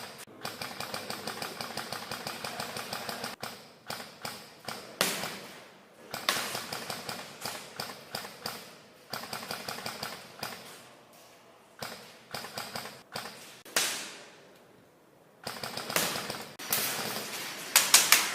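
Airsoft guns firing in a close-quarters game: a fast, even run of shots at the start, then scattered single shots and sharper cracks, with a cluster of loud ones near the end.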